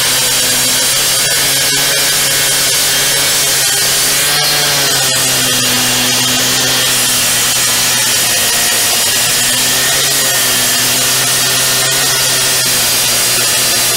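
Handheld cut-off saw with its blade sunk in a concrete paver, cutting a paver in place. It runs steadily under load, with a brief wavering in pitch about four seconds in.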